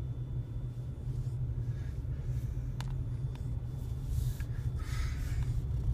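Steady low rumble of a car's engine and tyres heard from inside the cabin as it drives slowly, with two faint clicks near the middle.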